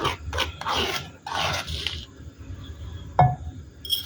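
A few scraping strokes on a stone mortar (cobek) holding finely ground rice flour, then a single sharp clink of crockery with a short ring about three seconds in.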